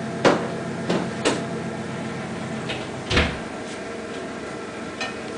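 Metal oven tray clattering as it is set down on a board, then an oven door shut with a knock about three seconds in.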